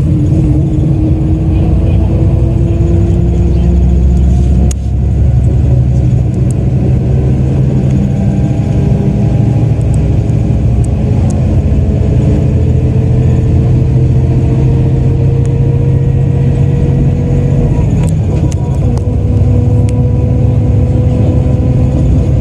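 Hino Selega coach's diesel engine under way, pulling steadily with its pitch slowly rising, dropping back at a gear change about five seconds in and again at about eighteen seconds.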